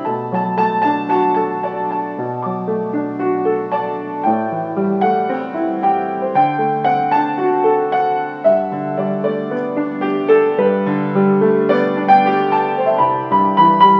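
Background piano music: a slow melody over held chords.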